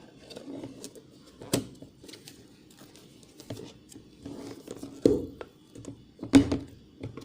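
A lid and container being handled and fitted over the marinating chicken: scattered clicks and knocks, with two louder thumps about five and six seconds in.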